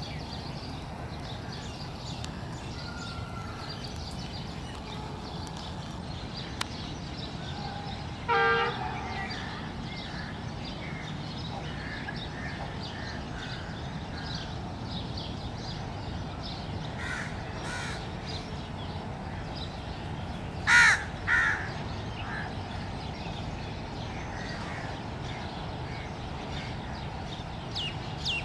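Crows cawing over a steady background hiss: one caw about eight seconds in and a louder pair of caws about 21 seconds in, with faint small bird calls throughout.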